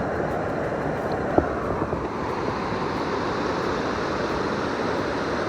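Mountain stream water running steadily, an even rushing noise, with one small click about a second and a half in.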